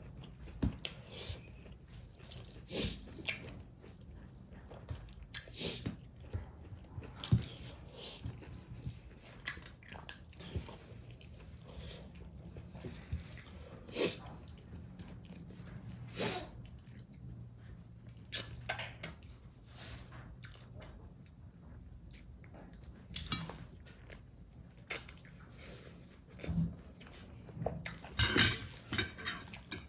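Close-miked eating sounds from a mukbang of fish with tomato and stink beans: wet chewing, lip smacks and short clicks scattered throughout, with a louder run of smacking near the end.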